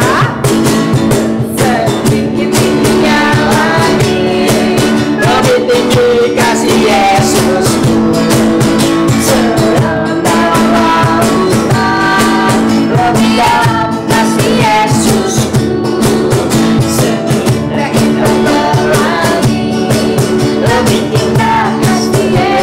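Young men and women singing an Indonesian praise song together, accompanied by two strummed acoustic guitars.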